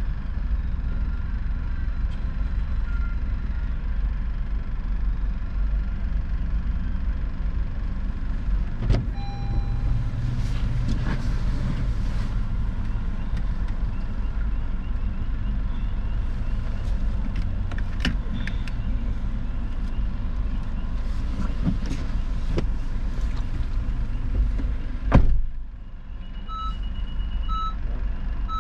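Steady low vehicle rumble heard from inside a stopped car, with scattered light clicks and knocks and one loud thump about 25 seconds in. Near the end a reversing alarm starts beeping, a bit under two beeps a second.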